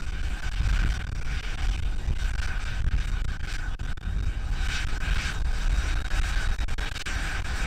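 Strong wind buffeting the microphone as a heavy, uneven rumble. Under it runs the steady high tone of the Cessna Citation 501's Pratt & Whitney JT15D turbofan engines running at idle.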